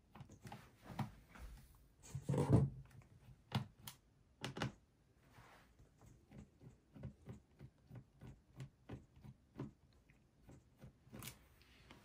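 Phillips screwdriver turning the bottom-cover screws of a Dell Latitude 7480 laptop: small clicks and scrapes of the bit in the screw heads, with a few louder knocks in the first five seconds and a run of light ticks after that.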